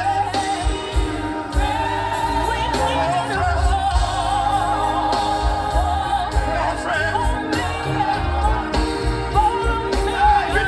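Live gospel music: a singer's voice weaving over the band with a steady beat.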